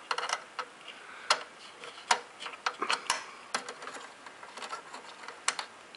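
Small Torx screwdriver working the tiny screws that hold an Xbox 360 Slim's RF board, giving irregular sharp clicks and ticks as the bit turns in the screw heads.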